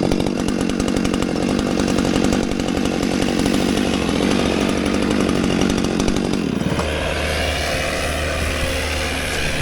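Two-stroke gas chainsaw running hard while cutting through a downed tree trunk; its sound changes about six and a half seconds in.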